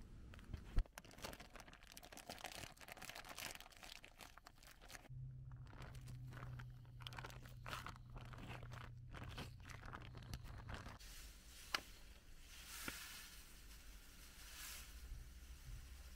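Plastic bags crinkling and rustling as they are handled, a run of short irregular crackles, with a low steady hum for several seconds in the middle.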